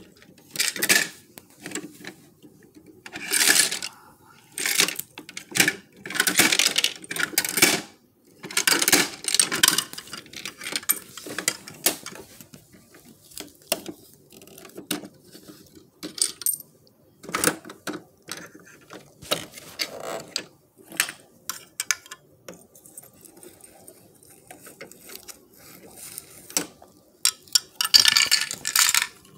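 Small hard-plastic toy wheelie bins being handled and knocked together, clattering and rattling in irregular bursts, with the loudest clatter near the end.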